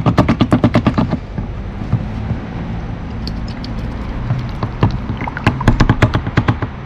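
Rapid knocking at about ten strokes a second on a gold pan as the concentrate is worked, in two runs: one at the start and one from about five seconds in to near the end. Under it runs a steady rumble of water and the concentrator's running.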